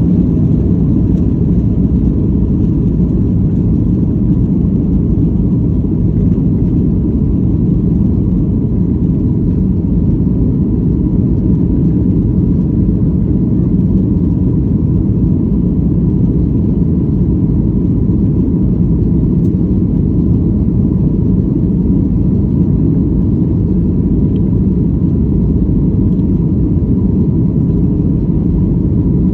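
Boeing 737 MAX's CFM LEAP-1B turbofan engines during take-off: a steady, loud, deep rumble with a faint steady tone above it, unchanging throughout.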